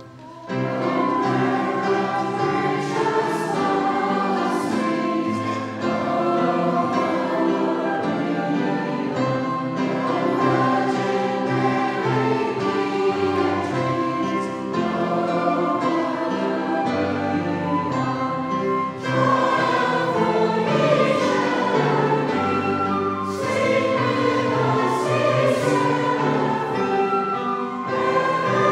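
Congregation singing a hymn together in a church, many voices in unison over sustained low notes.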